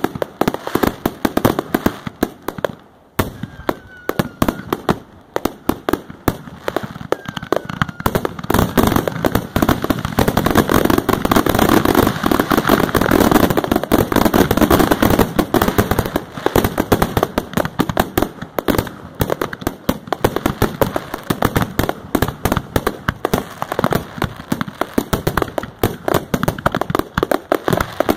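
Fireworks display: rapid bangs of bursting shells and crackling effects, packing into a dense, near-continuous barrage about a third of the way in, then thinning back to quick separate bangs.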